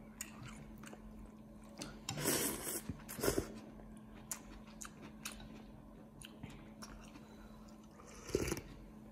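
A person eating noodle soup: chewing, with louder noisy bursts of eating sound about two to three seconds in and again near the end. Light clicks of chopsticks and a metal spoon against a ceramic bowl are heard here and there.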